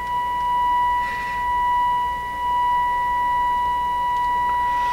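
Steady 1 kHz test tone from the Nordmende Globetraveler III's speaker: a signal generator's FM modulation received by the radio, with clear overtones above it, the sign of a distorted tone. Its level swells and dips slightly as the set is tuned through the signal.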